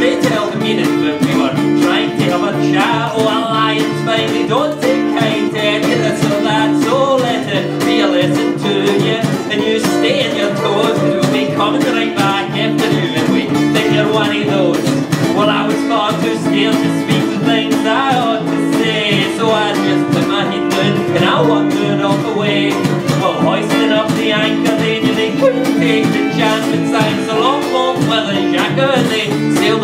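Live folk song: acoustic guitar strummed steadily while a man sings.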